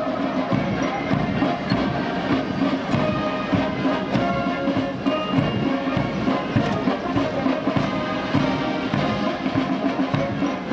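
Military brass band playing a march, with a steady drumbeat under the brass.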